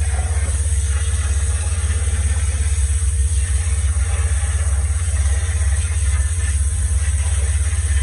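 Concrete line pump's engine running steadily with a low, even rumble, with the hiss of a hand-held water spray gun washing out the pump's hopper.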